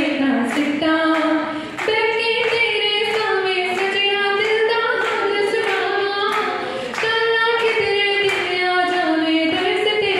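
A woman singing solo into a microphone, with no instruments, holding long melodic notes. Steady hand clapping comes about twice a second.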